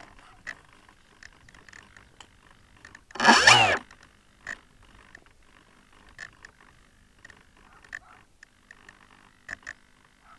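Electric motor of a Finwing Penguin FPV plane giving a short throttle blip about three seconds in, a loud whine that rises and falls in pitch, with the plane still on the ground. Faint scattered clicks around it.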